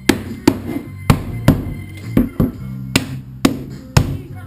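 Rubber mallet knocking on a PVC pipe frame, driving the plastic elbow fittings home. About ten sharp blows come roughly two a second, over music.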